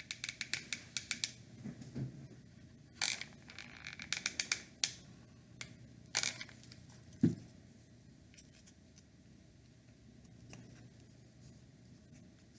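Handling of small craft pieces on a tabletop: quick runs of sharp clicks, a couple of short scrapes, and a single knock a little after seven seconds, then quiet room tone.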